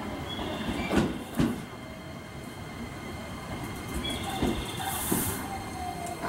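JR West 287 series electric limited express train pulling in and braking to a stop. Its wheels knock over rail joints twice about a second in, with thin brake squeals, a whine that falls as it slows, and a short hiss of air about five seconds in.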